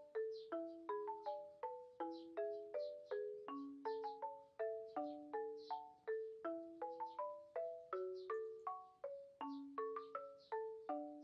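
Background music: a light melody of struck notes that ring and fade, about three a second.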